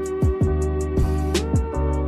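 Background electronic music: sustained synth tones over a steady beat of kick drum thumps and high hi-hat ticks.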